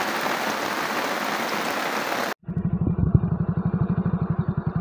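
A steady, even hiss that cuts off abruptly about two seconds in. After it, a motorcycle engine runs with a fast, even low putter.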